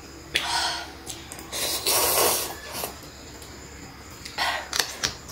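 Instant cup noodles being slurped from chopsticks in three hissy slurps. The longest and loudest comes about two seconds in.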